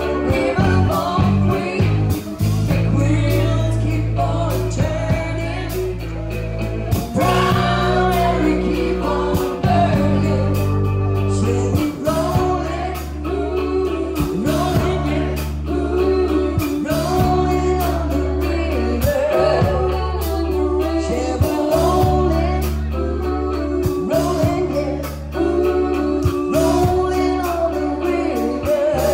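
Live band performing: a woman singing lead over electric guitar, bass guitar, drums and keyboards.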